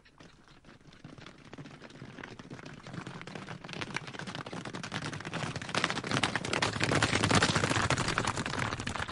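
Hooves of several horses galloping, a dense patter of hoofbeats that grows louder to a peak about seven seconds in and then begins to fade.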